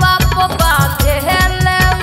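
Bhojpuri song backing music with a steady thumping beat, about four beats a second, and a melody line over it.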